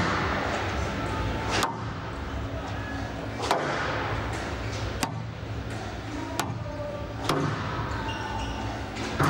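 Squash rally: sharp cracks of the ball struck by rackets and hitting the court walls, about six in all, spaced roughly one and a half to two seconds apart, over a steady low hum.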